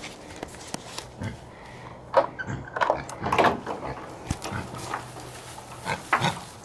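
Several short animal calls from the farm animals: one sharp call a little after two seconds in, a cluster around three to three and a half seconds, and another pair near six seconds.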